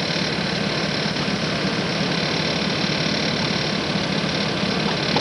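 Vehicle engine running steadily close by, a continuous even rumble with hiss over it.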